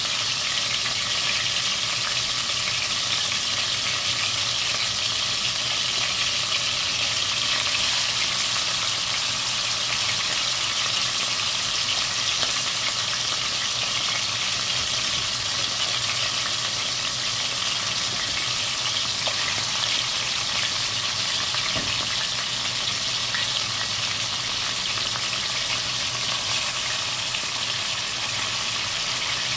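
Seasoned chicken pieces frying in shallow hot oil, a steady sizzle as more pieces are laid in: the browning stage of brown stew chicken.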